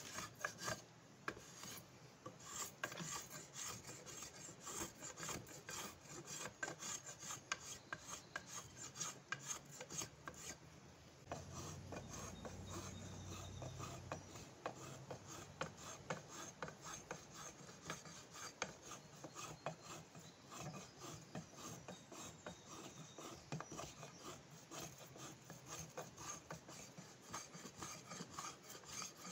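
Rasp scraping along a hickory axe handle in quick repeated strokes, shaping the wood.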